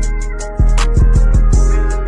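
Hip hop background music with a deep booming bass kick, crisp hi-hat and snare hits and held keyboard chords.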